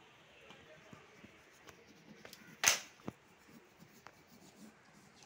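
Faint small ticks and rustles of painting work, with one sharp clack about two and a half seconds in and a lighter tick just after.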